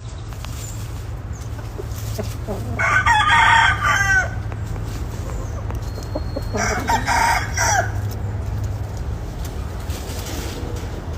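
Rooster crowing twice, each crow about a second long with a falling end, a few seconds apart, over a steady low hum.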